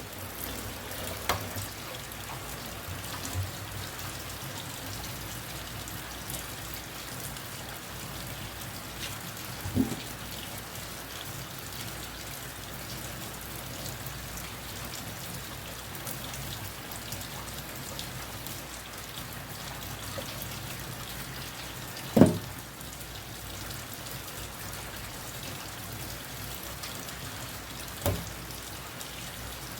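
Kitchen tap running steadily into a sink, with a few sharp knocks of handling breadfruit and a knife, the loudest about two-thirds of the way through.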